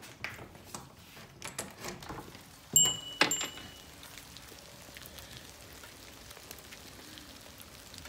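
Two sharp knocks with a brief metallic ring about three seconds in, after a few soft clicks, then a steady faint hiss of light rain falling.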